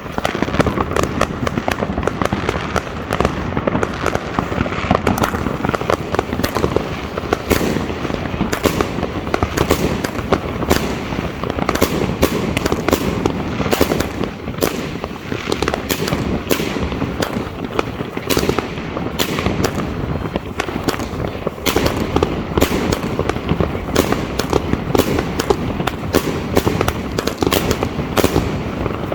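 Funke Eisbrecher salute battery firing its 25 mm salutes in quick succession: a rapid, continuing series of sharp bangs.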